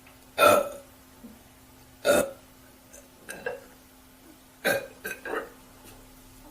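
A woman burping out loud several times in short bursts. The first, about half a second in, is the loudest; smaller burps follow at intervals of a second or so.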